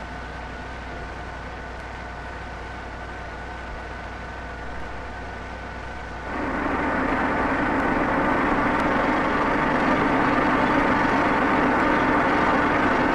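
Vertical turret lathe (vertical boring mill) running with a steady machine hum while it takes a light finishing cut of two thousandths of an inch on the outside diameter. About six seconds in the sound steps up louder, adding a new low drone.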